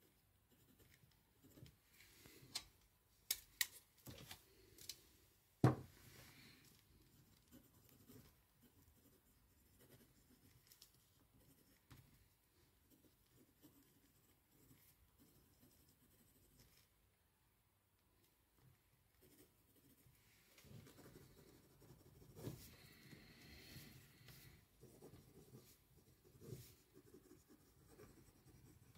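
Faint scratching of a pen on paper as someone writes by hand, with a few sharp clicks or knocks between about three and six seconds in, the loudest near six seconds.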